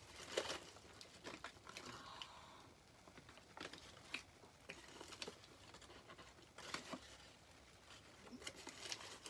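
Faint, intermittent crinkling and rustling of a foil-lined paper burger wrapper being unwrapped and handled, in scattered short crackles.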